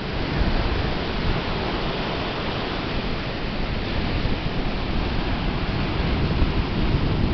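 Ocean surf washing steadily on a beach, a continuous hiss of breaking and receding waves with wind buffeting the microphone.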